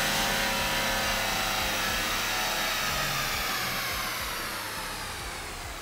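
MK6 Jetta TDI's turbodiesel and the chassis dyno rollers spinning down after a full-throttle pull: a loud whooshing whine whose pitch falls steadily and which fades from about two seconds in.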